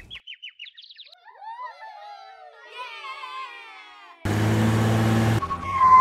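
Cartoon 'seeing stars' sound effect: a quick run of falling high chirps, then warbling bird-like tweets. About four seconds in, a loud buzzing, motor-like sound effect cuts in, and a steady beep-like tone follows near the end.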